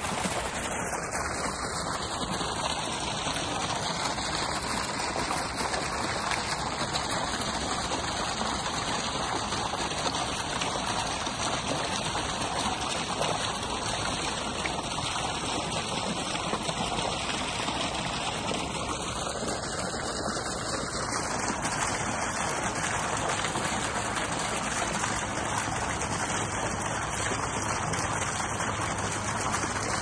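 Water fountain running: a steady, even splashing of falling water.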